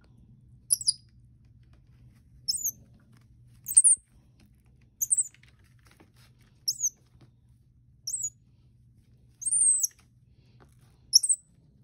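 Baby common squirrel monkey giving short, high-pitched chirping peeps, about eight of them spaced roughly a second and a half apart, over a faint low hum.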